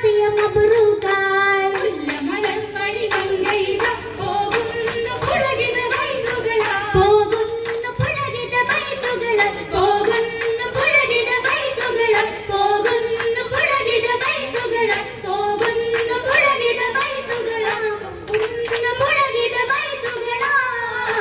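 Oppana song: women singing a Mappila melody through a sound system, with the dancers' rhythmic hand claps keeping the beat.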